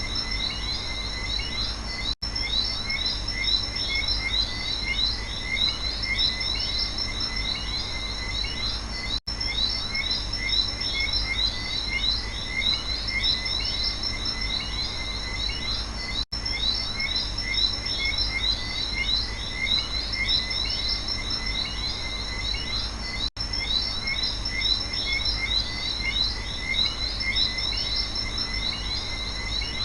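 Night rainforest chorus of frogs and insects: dense, fast, overlapping chirping with a steady high trill over it. The sound cuts out for an instant about every seven seconds where a short recording is looped.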